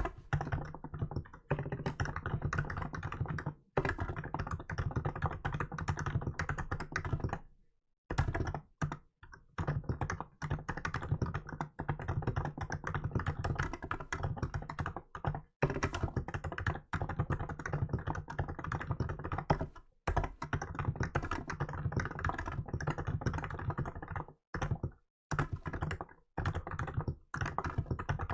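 Hansung GK868B electro-capacitive (Topre-style) keyboard being typed on in fast continuous runs of keystrokes, broken by a few brief pauses.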